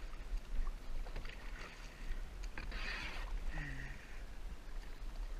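Kayak paddle strokes dipping and splashing in pond water, with one louder splash about three seconds in.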